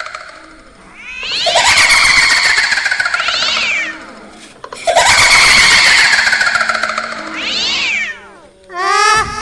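Two long wavering wails like a cat's yowl, each ending in a quick upward sweep before trailing off.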